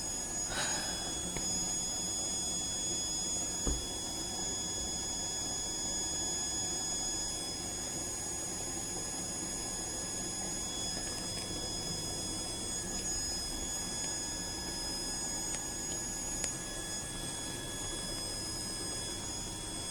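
Haier front-loading washer-dryer running steadily mid-cycle: a low even hum with a thin, steady high-pitched whine over it.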